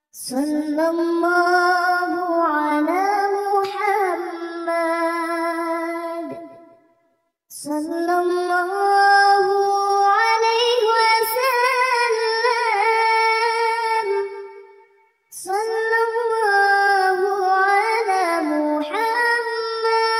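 A high, child-like solo voice singing a shalawat unaccompanied, in three long phrases with wavering, ornamented pitch and short breaks between them.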